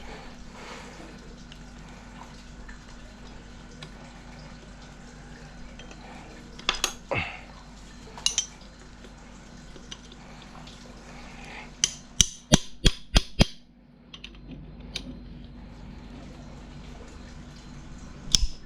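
Metal hand tools and parts clinking and knocking against metal. There are a few single sharp clinks, then a quick run of about seven a little past the middle, over a steady low hum.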